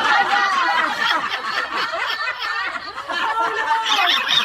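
People laughing hard, with snickers and chuckles, in reaction to a joke.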